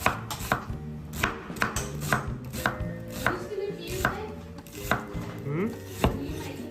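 Knife chopping on a cutting board, sharp knocks at roughly two strokes a second, unevenly spaced.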